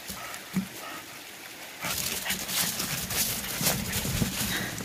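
A dog making a couple of brief high sounds. From about two seconds in, footsteps and paws rustle and crunch through dry fallen leaves on a wooden trail.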